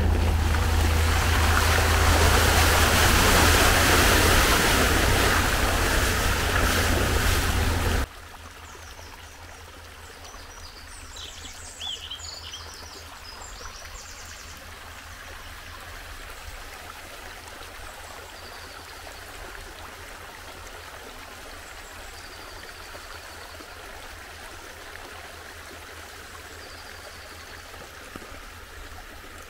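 A Chevrolet Tahoe driving through a deep meltwater puddle, loud with tyre and water noise and a low drone. About eight seconds in it cuts off suddenly to a small meltwater stream running over a gravel road, a much quieter steady trickle, with a few faint high chirps soon after.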